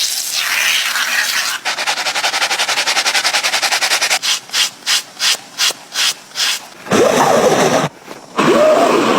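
Rubbing strokes on a sneaker being restored. A fast, even run of strokes gives way to slower, separate strokes about halfway through, then a louder squeaky rub near the end.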